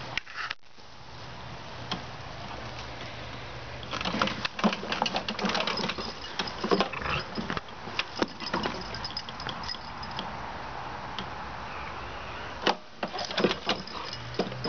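Lawn mower running with a steady hum, with bursts of irregular metallic clicking and jingling over it.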